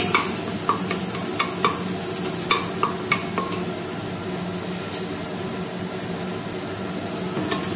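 Whole spices (bay leaf, cinnamon, cardamom, cloves) sizzling in hot oil and ghee in a stainless steel pressure cooker, stirred with a wooden spoon: a steady frying hiss with a scatter of sharp clicks in the first few seconds. This is the tempering stage, the spices frying in the fat before the onions go in.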